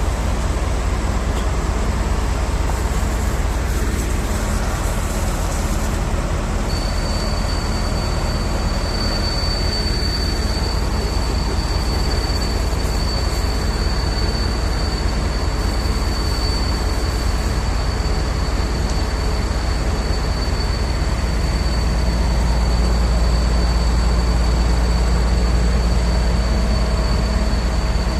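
Heavy diesel truck engine running steadily at a construction site, a deep continuous rumble that grows louder about three-quarters of the way through, with a thin steady high whine joining in about seven seconds in.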